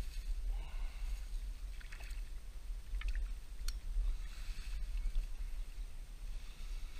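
Water splashing as a hooked silver Prussian carp is drawn to the bank and scooped with a landing net, with the net and pole rustling through dry bank grass, over a steady low rumble. Two sharp clicks come near the middle.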